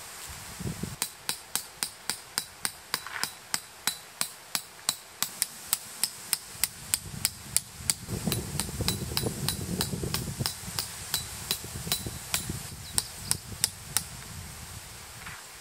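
Tent pegs being hammered into the ground: a steady run of sharp blows, about three a second. There is a low rumble for a couple of seconds near the middle.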